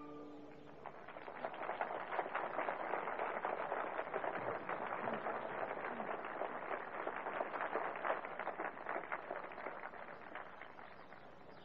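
Audience applauding as a string piece ends: the last held note dies away, and the clapping builds within the first second or two, then fades near the end.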